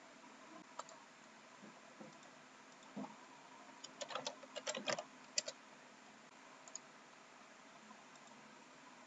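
Computer keyboard typing and mouse clicks: a few single clicks, with a quick run of keystrokes about four seconds in, over faint hiss.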